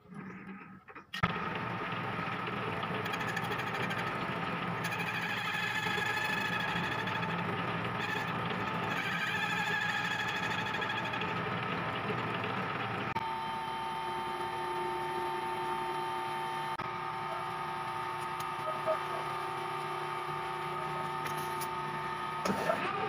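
Metal lathe running with its four-jaw chuck spinning, a steady mechanical drone with gear whine that comes in suddenly about a second in. About halfway through, the sound changes to a cleaner, steadier whine.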